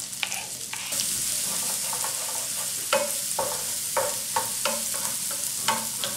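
Chopped onions sizzling in hot butter with curry leaves and green chillies in a frying pan. The sizzle grows louder about a second in, and a wooden spoon knocks and scrapes against the pan several times as the onions are stirred.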